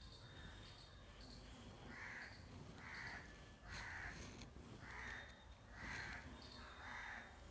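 A crow cawing faintly, six harsh caws about a second apart starting about two seconds in, over faint high chirping.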